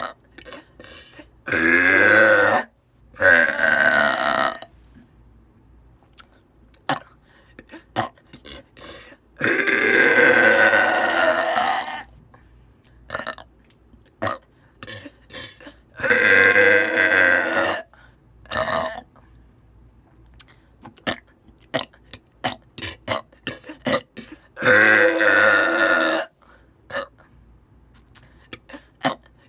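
A woman belching loudly five times. The belches are drawn out with a wavering pitch, and the longest, about two and a half seconds, comes near the middle.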